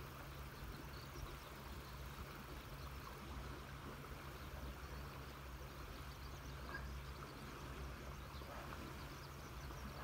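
Faint, steady rush of a river, with a low steady hum beneath it and a few faint, brief bird chirps.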